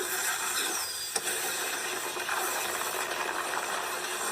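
Sound effects from an anime fight scene: a steady, noisy, engine-like rushing sound of high-speed movement.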